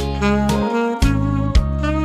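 Yamaha alto saxophone playing a slow melody over a karaoke-style backing track, with bass and a drum beat about every half second.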